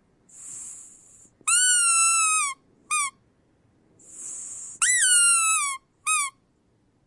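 Rubber squeak toy squeezed twice. Each time a soft hiss of air comes first, then a long squeak whose pitch droops downward, a 'sad' sound, followed by a short squeak.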